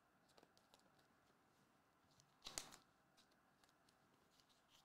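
Faint rustling and light clicks of trading cards and a clear plastic card sleeve being handled, with one louder brief rustle about two and a half seconds in.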